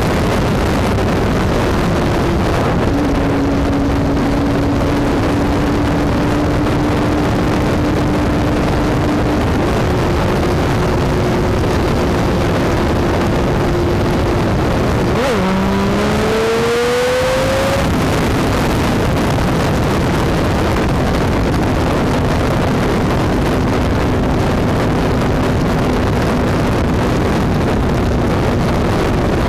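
Triumph motorcycle at highway speed: heavy wind rush over the microphone with a steady engine drone underneath. About halfway through, the engine note drops, then climbs for a few seconds as the rider rolls on the throttle.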